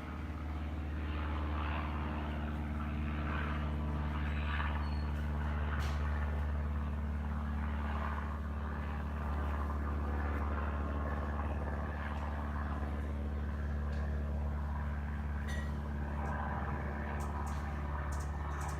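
PB Codep Model 100 ceiling fan running, its motor giving a steady low hum with a rush of moving air over it.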